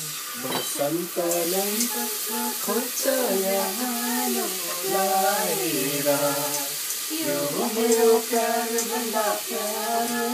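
A woman singing a slow melody, with long held notes that slide from pitch to pitch. Food sizzles faintly in a pan underneath.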